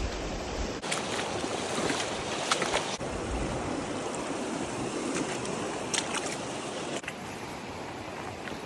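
Steady rush of flowing river water, with a few faint clicks. The noise changes abruptly a few times, as between joined clips.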